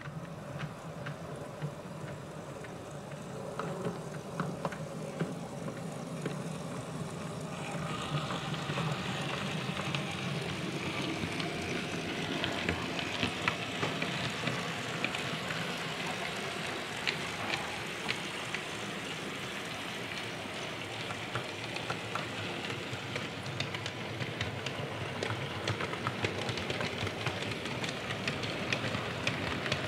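Model railway locomotive with a string of coal wagons running along the track: a steady low motor hum, then from about eight seconds in a louder rattle of wheels with many small clicks.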